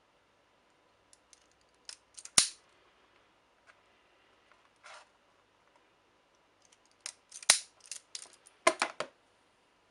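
Hand wire strippers snipping and clamping on thin cable wires as the insulation is stripped off the ends: a sharp snap about two and a half seconds in, a short rasp about five seconds in, then a quick run of clicks and snips near the end.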